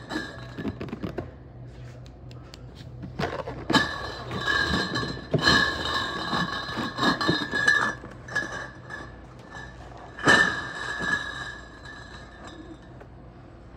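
Cardboard cases of glass beer bottles being handled and set down, the bottles clinking and ringing inside with several sharp knocks, the loudest about ten seconds in.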